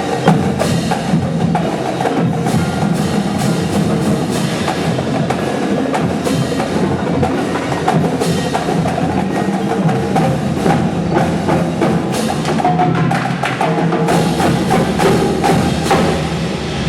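High school indoor drumline, battery drums and front-ensemble pit percussion, playing a show piece: dense, fast drum strokes over sustained pitched notes.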